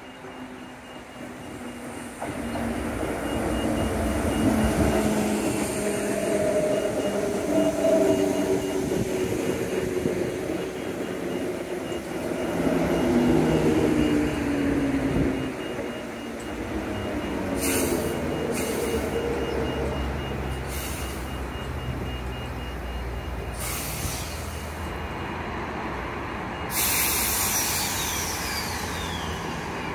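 Transperth electric multiple unit pulling into a platform, its motor whine sliding down in pitch as it slows. Once it has stopped, several short sharp air hisses follow, then a longer louder hiss near the end.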